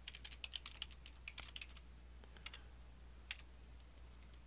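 Typing on a computer keyboard: faint, irregular key clicks in quick runs, with a pause of about a second past the middle before a few more keystrokes.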